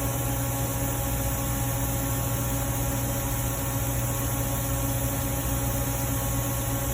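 Steady background hum and hiss, a constant machine drone with a few held tones and no clicks or knocks.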